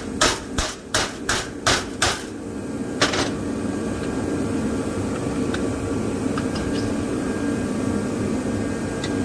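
Hammer blows on a TIG-welded aluminum test piece to break-test the weld: about seven sharp strikes at roughly three a second, then a last one about a second later, over a steady background hum.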